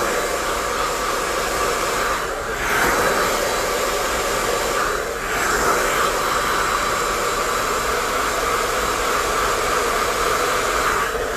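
Hair dryer fitted with a diffuser blowing steadily on curly hair, its rushing noise dipping briefly twice, about two and five seconds in.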